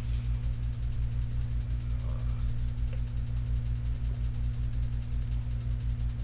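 An engine idling: a steady low drone with a fast, even pulse.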